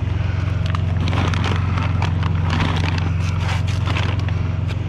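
Rustling, clattering and crinkling of discarded items being handled and rummaged through, over a steady low droning hum.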